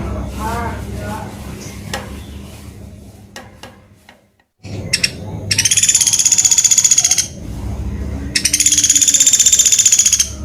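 Pelatuk beras woodpecker calling: two rapid, high, pulsing trills of about two seconds each in the second half, over a steady low hum. Weaker warbling notes come near the start, and the sound briefly drops out just before the middle.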